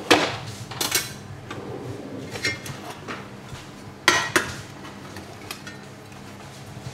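A metal spoon clinking and scraping against dishes while stuffing is scooped out of a roast chicken: a few sharp clinks, loudest right at the start and again about four seconds in, with lighter taps between.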